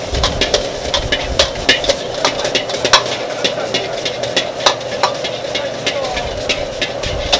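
Fried rice being stir-fried in a wok: a metal ladle repeatedly scrapes and clanks against the wok as the rice sizzles, over a steady hiss.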